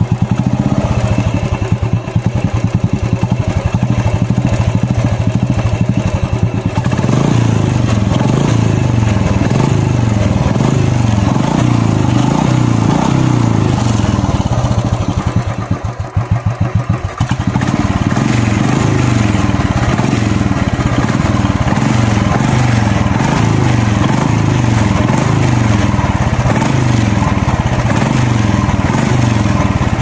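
Royal Enfield Classic 350's single-cylinder engine idling through an aftermarket Indori silencer fitted in place of the stock one, giving the steady, slow thumping Bullet exhaust note, heard close to the silencer. It gets louder about seven seconds in and dips briefly a little past halfway.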